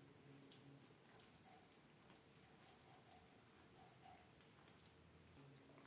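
Near silence, with faint rustling and crackling of hands working flour into dough in a glass bowl.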